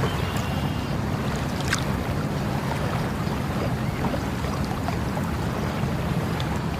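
Water flowing steadily with a constant rushing sound, with a few faint high ticks and a brief high chirp just under a second in.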